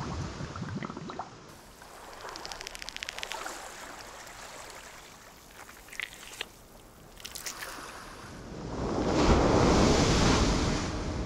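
Beach sound effects: a few small drips and pops, a quick run of clicks, then from about eight and a half seconds in a loud wash of surf and wind-like noise that builds and holds.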